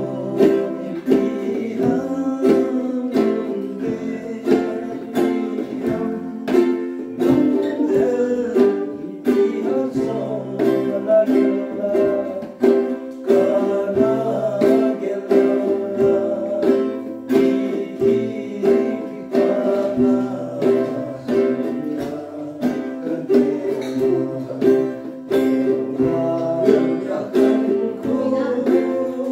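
Acoustic guitar and ukulele strummed together in a steady rhythm, with a hand drum and a man singing along.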